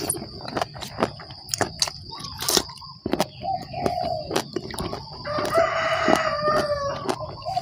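A rooster crowing: one long call about five seconds in, lasting about a second and a half.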